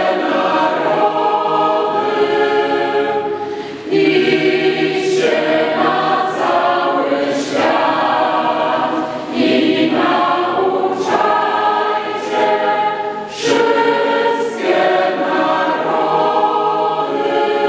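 Church schola (choir) singing a Polish hymn, in sung phrases with short breaks between them.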